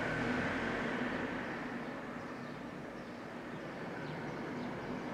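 Diesel passenger train idling at the platform: a steady engine hum with a faint high whine above it.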